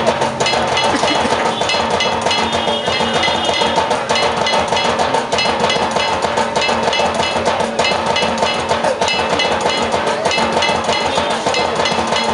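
Dhak drumming with the steady metallic clang of a kansar (bell-metal gong), a fast rhythm kept up without a break; it is the sound track that drives an electronic moving statue of a dhak drummer and a boy striking a kansar.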